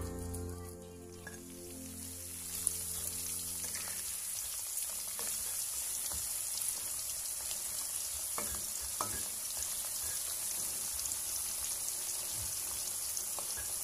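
Sliced jengkol deep-frying in a wok of hot oil, a steady sizzle, stirred with a spatula that scrapes the wok a few times.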